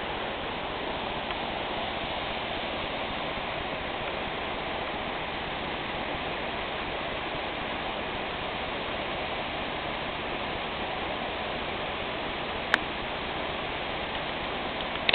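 Steady rushing of a waterfall and its creek, with one sharp click about three quarters of the way through.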